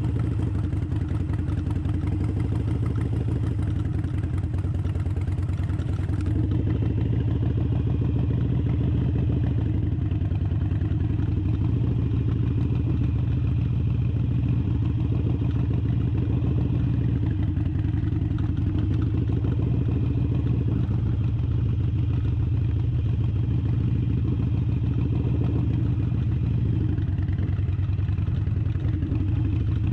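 Harley-Davidson motorcycle's V-twin engine running steadily while being ridden at low speed.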